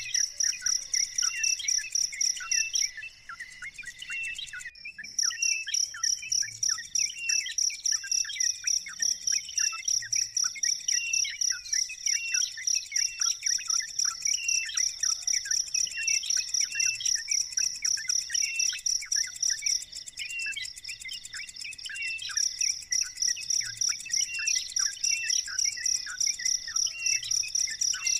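Newly hatched bird chicks peeping in many short, quick chirps, over a high, rapidly pulsing trill like a cricket's that breaks off briefly twice.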